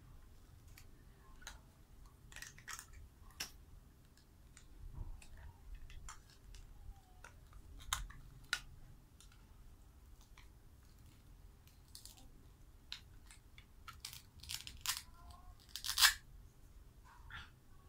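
Plastic toy cutting-food pieces being handled, pulled apart and pressed back together: scattered clicks and knocks with short rasps of the Velcro joins tearing open, the loudest rasp near the end.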